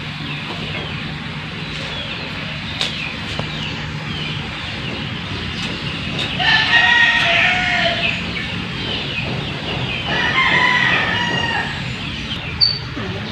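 A rooster crowing twice, once about six seconds in and again about ten seconds in, over a steady low hum.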